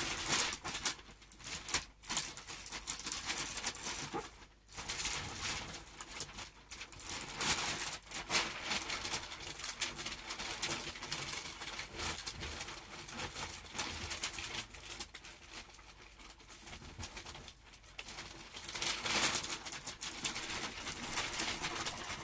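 Wrapping paper crinkling and rustling in irregular bursts as a present is folded and wrapped by hand, with a few brief pauses.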